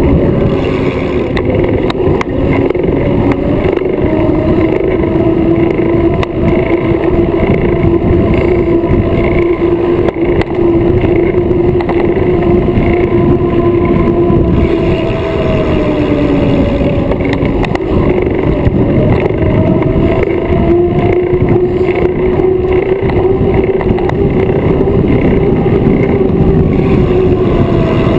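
Riding noise from a bicycle-mounted camera moving at speed: steady wind buffeting on the microphone with a droning hum underneath that drifts slowly in pitch and dips about sixteen seconds in.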